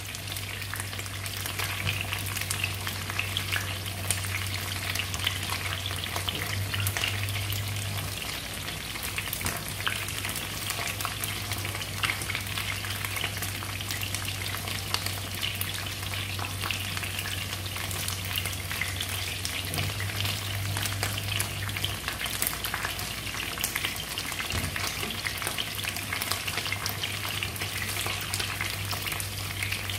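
Pieces of red snapper fish head shallow-frying in hot oil in a non-stick wok: a steady sizzle full of small pops and crackles as the fish browns. A low hum runs underneath.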